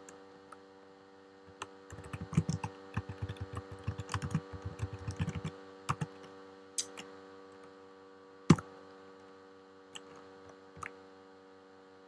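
Typing on a computer keyboard: a quick run of keystrokes for a few seconds, then scattered single key presses, one louder near the middle, over a steady electrical hum.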